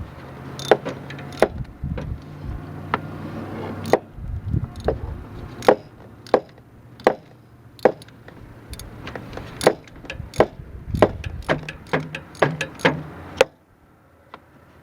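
Ratchet wrench working a spark plug loose from a Chevy S10's 2.8L V6, giving a run of sharp, uneven clicks about one or two a second. The clicks stop near the end.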